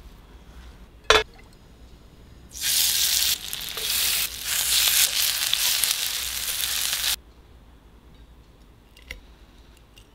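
A sharp click about a second in, then food sizzling as it fries in hot oil for about four and a half seconds, cutting off suddenly.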